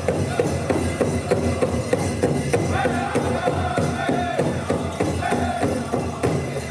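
Powwow drum group playing for a grass and chicken dance contest: the big drum struck in a steady, even beat while the singers sing a dance song over it.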